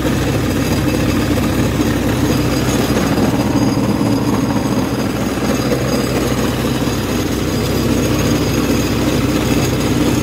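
Rice huller husking paddy, running steadily under load with its drive engine: a loud, continuous mechanical running that does not change.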